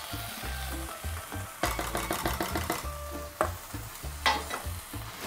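Blender jar clinking and scraping against the rim of a stainless steel pot as the last of a thick blended cream is emptied in: a quick clatter about two seconds in, then two single knocks, over background music.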